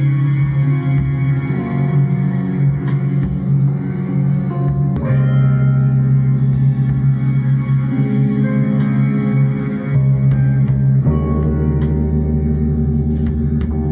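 Music: a sustained low drone tone with guitar played over it, plucked notes sounding in a steady pulse. The drone shifts at about five seconds and deepens near eleven seconds.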